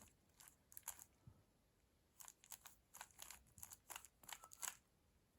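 Rubik's cube layers being turned by hand through an algorithm, giving quick plastic clicks and scrapes: a few turns in the first second, a pause, then a longer run of turns from about two seconds in until near the end. The turns are the beginner-method algorithm that cycles the last-layer corners into place.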